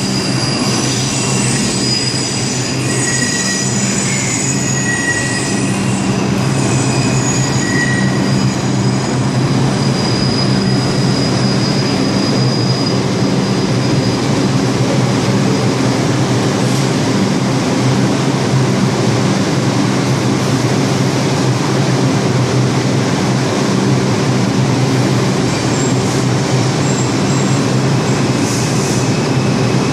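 R142 subway train running through the station: a steady loud rumble of steel wheels on rail with a low motor hum. High wheel squeals ride over it for roughly the first ten seconds, then fade.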